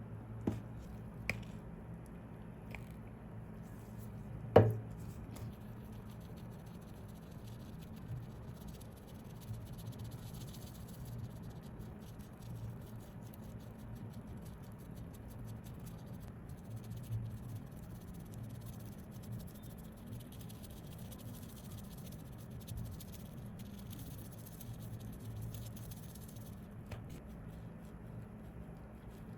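Quiet bench work on a watch: light clicks of small tools and parts, one sharp click about four and a half seconds in, then soft scratching over a low steady hum.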